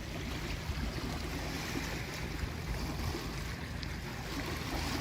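Steady rush of creek water flowing over rocks, with a low rumble underneath.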